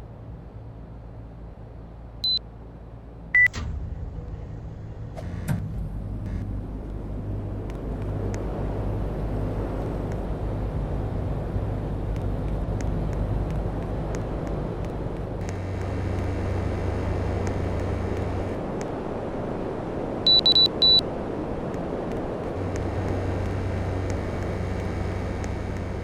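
Air conditioner beeping and running: a short beep about two seconds in and another a second later, then three quick beeps about twenty seconds in. Under the beeps is a steady hum, with a rush of air that builds up after the first beeps.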